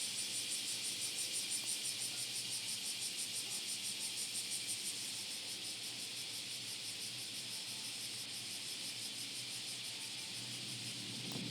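A high, shrill chorus of insects chirring, pulsing rhythmically for the first five seconds or so, then going on steadier.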